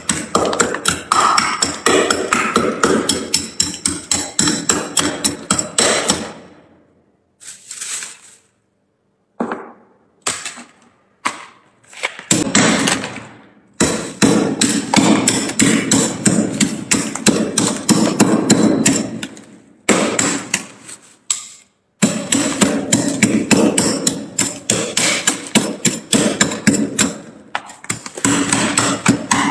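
Metal spoon scraping and chipping thick built-up frost off the walls of a freezer compartment in quick repeated strokes, several a second. The strokes stop about a third of the way in, come back only a few at a time for some seconds, then resume, with one more short break later.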